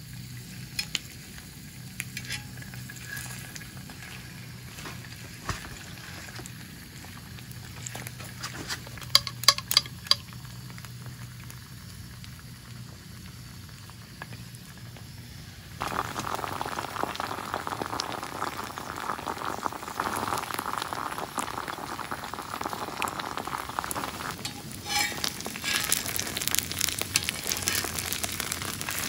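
Food sizzling in a hot oiled pan. It starts suddenly about halfway through and turns brighter and hissier near the end. Before that there is only a faint low hum, broken by a quick cluster of sharp clicks.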